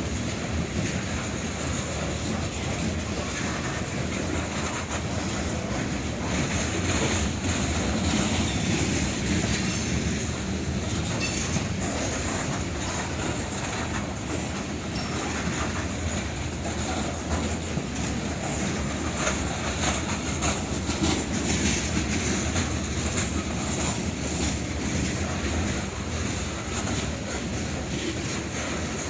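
A long freight train rolling past: steady rumble and clatter of wheels over the rails, with a high squeal from the wheels coming and going.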